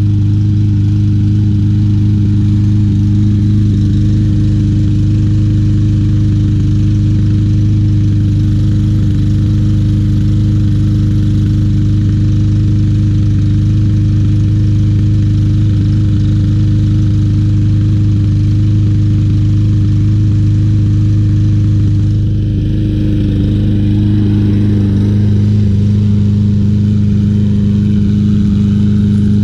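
Briggs & Stratton 150cc single-cylinder mower engine running steadily on a Troy-Bilt TB200, with a slight dip and change in tone about three quarters of the way through. It runs rough with an engine miss that persists despite a cleaned carburetor, new spark plug and new flywheel key.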